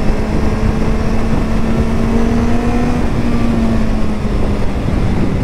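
Motorcycle engine running at a steady cruising speed, its note holding steady with a slight dip about three seconds in, over loud wind rush on the microphone.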